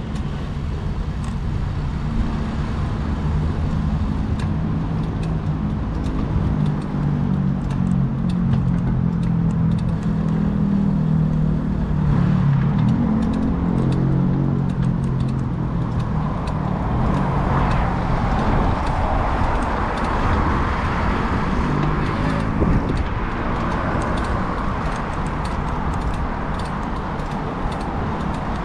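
Street traffic heard from a moving bicycle, with wind rumbling on the action camera's microphone. A nearby motor vehicle's engine hums steadily for about the first half, then gives way to general traffic noise.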